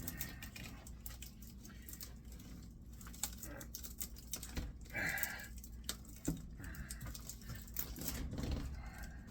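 Irregular metallic clicks and scrapes of hand tools gripping and working at tightly packed copper windings in an electric motor's stator, the windings not pulling free.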